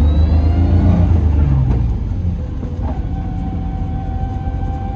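In-cabin sound of a 1987 BMW E30 325e's inline-six engine pulling away in first gear, its note rising for about two seconds and then dropping back quieter. A steady thin whine comes in about three seconds in.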